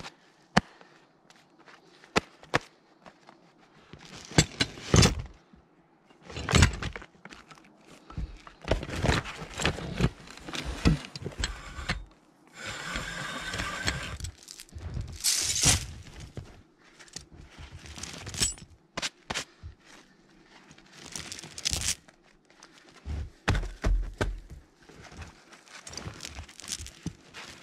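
Steel rigging chain and hooks clinking, clanking and rattling as they are handled and pulled, in an irregular series of knocks, with crunching and rustling of deep snow underfoot.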